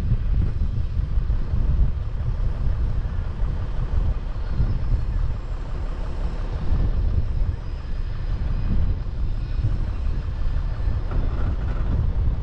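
Off-road 4x4 vehicle on the move: a steady, heavy low rumble buffeted by wind noise on the microphone.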